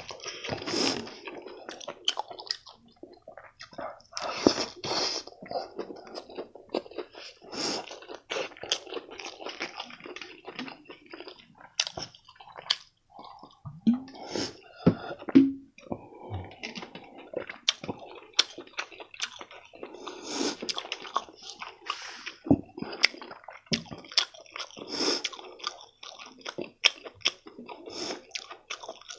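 A person chewing food close to the microphone: wet mouth noises with irregular clicks and smacks.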